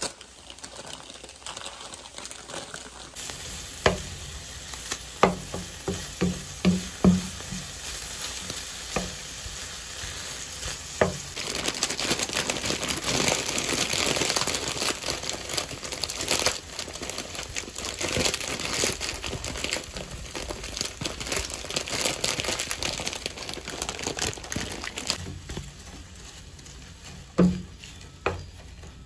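Food frying in a pan, a steady sizzle that grows louder about twelve seconds in and eases off a few seconds before the end. Sharp knocks and clinks of utensils or cookware come several times in the first eleven seconds and again near the end.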